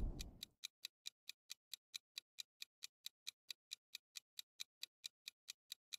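Clock-ticking sound effect for a countdown timer: faint, quick, even ticks at about four a second. A fading tail of an earlier sound dies away in the first half second.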